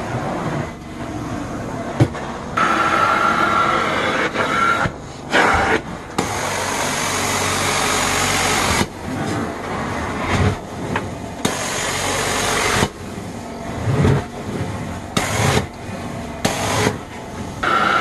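Carpet-cleaning extraction wand worked across the carpet in strokes. It gives a steady rush of suction and hot-water spray with a whistling tone, rising in uneven stretches of a second or two and dropping back between strokes.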